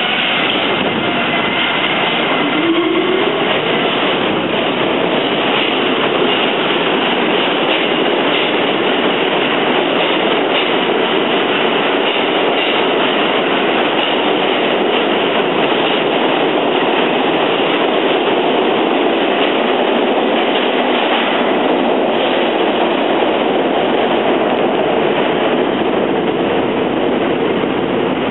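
New York City Subway R40 train pulling out of the platform: its motors whine up in pitch about three seconds in, then a steady loud din of wheels and motors on the rails as the cars run past.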